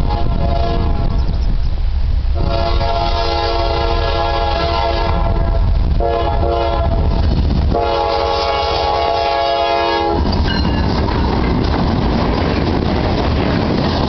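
Lead GE Dash 9-40CW diesel locomotive of a Norfolk Southern freight sounding its air horn in a run of blasts: long blasts with two shorter ones in the middle, ending with a long blast about ten seconds in. Then the locomotives and freight cars pass close by, their wheels rumbling and clattering on the rails.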